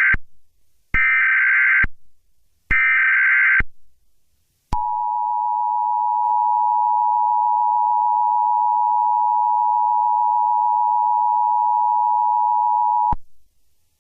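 Emergency Alert System SAME header data bursts, each about a second long with a second's gap between them, followed by the EAS attention signal: a steady two-tone alert tone held for about eight seconds before it cuts off. Together they announce the start of an emergency alert broadcast.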